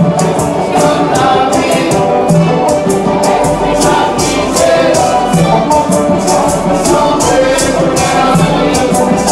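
Small live acoustic band playing upbeat music: banjo and drum, with a shaker keeping a steady rhythm and voices singing.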